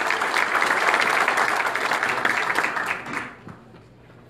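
Audience applauding, many hands clapping, dying away about three seconds in.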